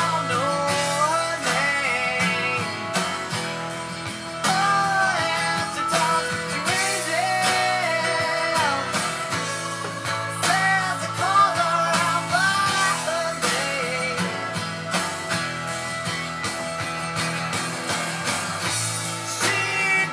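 Rock song with guitars and a singing voice.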